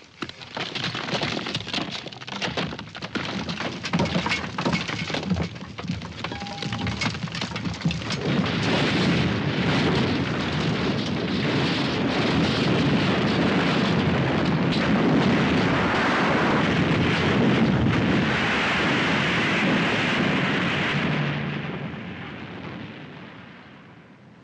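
Mine tunnel caving in: sharp cracks of the timber props and a patter of falling earth and stones, building about eight seconds in to a long, loud rush of collapsing rock that fades away over the last few seconds.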